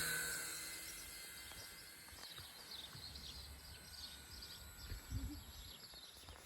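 Toy radio-control helicopter's small electric motor whining and fading away over the first two seconds; it started up on its own, with no input from the controller. After that, faint scattered bird chirps.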